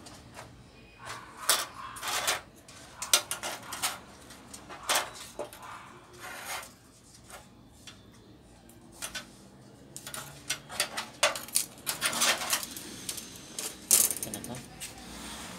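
LED backlight strips being pulled loose and lifted off a TV's metal back panel: a string of light metallic clicks, clinks and rattles in clusters, busiest in the last few seconds.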